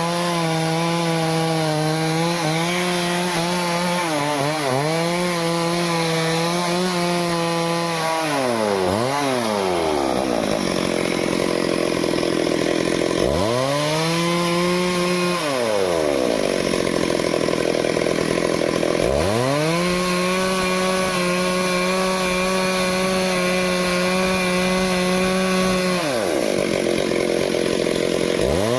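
Stihl two-stroke chainsaw cutting teak wood, its engine running at high revs. The pitch drops away and climbs back several times: about eight seconds in, around fifteen seconds, and again near the end, with a rough cutting noise while it is down.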